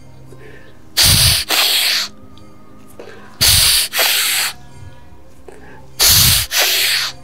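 A man's forceful breaths close on a clip-on microphone during a repeated seated twisting exercise. There are three loud breaths about two and a half seconds apart, each in two quick parts, in time with the twists.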